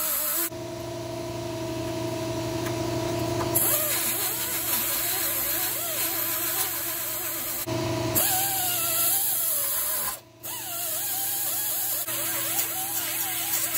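Pneumatic right-angle die grinder running with a steady whine whose pitch wavers as the small disc is pressed onto and eased off the welds, grinding them flush on the steel frame rail. There is a short break in the sound about ten seconds in.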